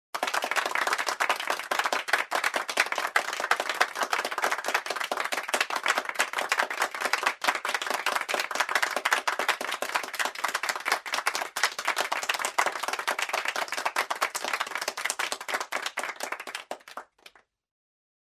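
Applause from a group of people: many hands clapping densely and steadily, starting abruptly and stopping abruptly about a second before the end.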